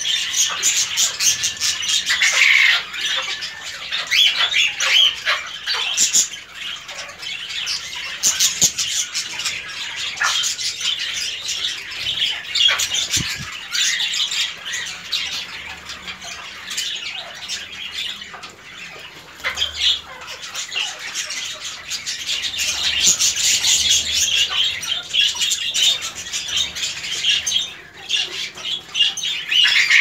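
Cockatiels chattering with rapid, high-pitched squawks and chirps, almost without pause.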